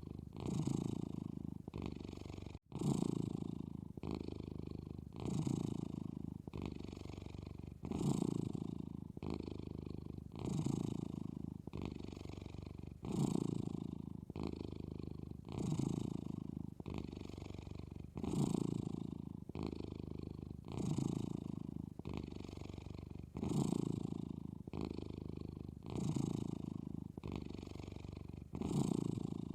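Domestic cat snoring in its sleep: a low, rasping rumble on every breath, swelling strongly about once every two and a half seconds with a weaker swell between.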